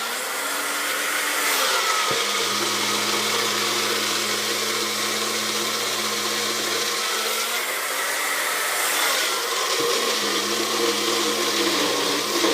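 Electric countertop blender running steadily, churning pancake batter; its motor pitch sags and recovers a few times as the load shifts.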